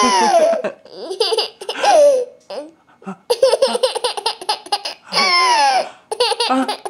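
Young child laughing in several bursts of high-pitched squeals and giggles, two of them gliding down in pitch.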